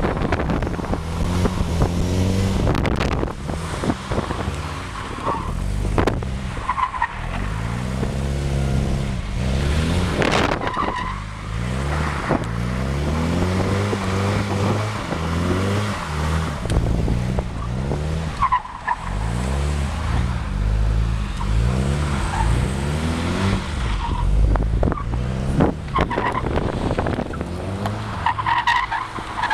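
A car engine driven hard, its pitch repeatedly climbing as it revs and dropping back at each lift or gear change, with short tyre squeals several times as the car is thrown through tight turns.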